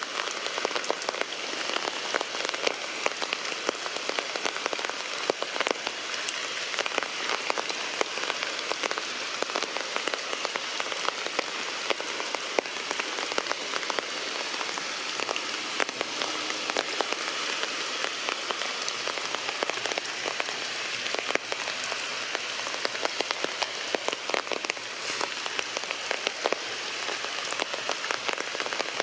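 Heavy rain falling steadily, with a constant hiss and many sharp drips and drop ticks splashing on leaves and surfaces.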